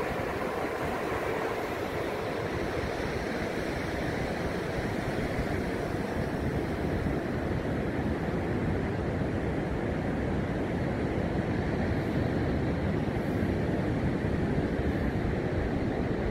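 Ocean surf breaking and washing up a sandy beach, a steady rushing noise with wind blowing across the microphone.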